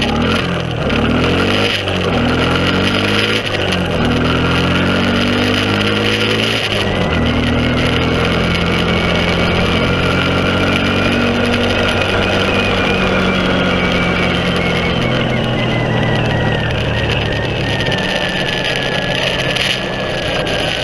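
Honda TRX300EX ATV's single-cylinder four-stroke engine revving up through three gears in the first seven seconds, the pitch dropping at each shift, then running steadily at cruising speed, with wind noise over the microphone.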